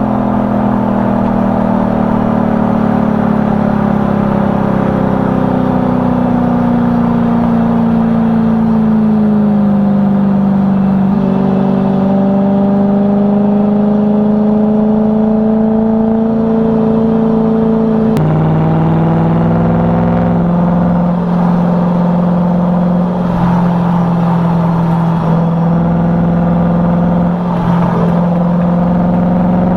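BMW E92 M3's 4.0-litre V8 engine and exhaust under way. The note slowly falls, jumps up about 11 seconds in, drops sharply about 18 seconds in, then holds and slowly rises again; the sudden steps are typical of gear changes.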